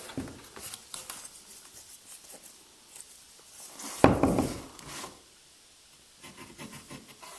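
Wooden door casing trim being handled and marked: light scrapes and small clicks, with one loud knock about four seconds in.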